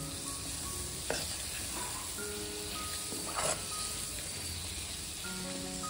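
Chopped tomatoes and spices sizzling in hot oil in a stainless steel kadai while a metal spoon stirs and scrapes the pan now and then; soft background music with held notes underneath.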